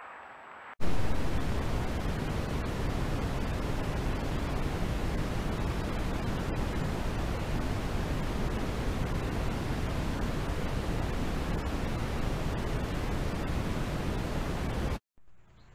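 Loud, steady hiss of noise from a night-mode trail camera's own audio, cutting in abruptly about a second in and stopping abruptly near the end. No animal sound stands out above it.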